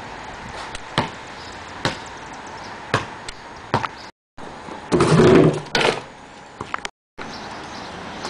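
Basketball bouncing on a paved driveway: single sharp bounces, about one a second. About five seconds in, a louder rough noise lasts about half a second, and the sound cuts out briefly twice.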